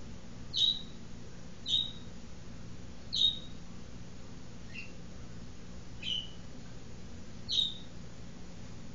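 A small bird giving six short, high chip calls, each sharp and dropping slightly in pitch, roughly one every second and a half, over a faint steady low hum.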